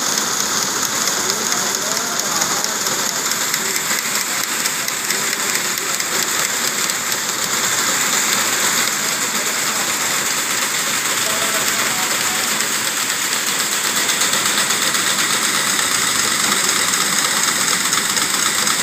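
Computerized glove knitting machine running: the carriage shuttles across the needle bed as it knits a glove, making a dense, steady, fast clatter of needles and cams.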